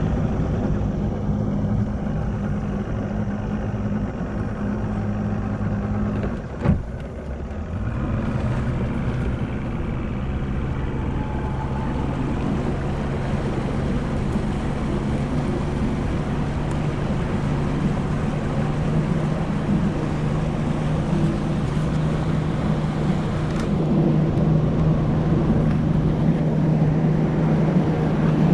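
Bass boat's outboard motor running under way, with water and wind rush. A single sharp knock about seven seconds in, after which the engine settles into a lower, steady note that grows a little louder near the end.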